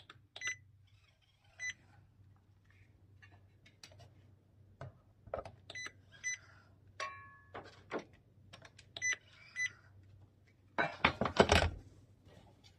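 Doersup Smart M20 handheld inkjet marker giving several short, high beeps, some in quick pairs, as it is pressed against the metal and drawn across to print; the beep is the cue that it is ready to be drawn across. Small clicks of the printer on the metal guide plate, and about eleven seconds in a louder clatter of the sheet-metal plates being shifted.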